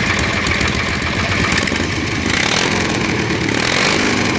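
An 18-horsepower twin-cylinder engine on a pulling lawn mower tractor idling steadily.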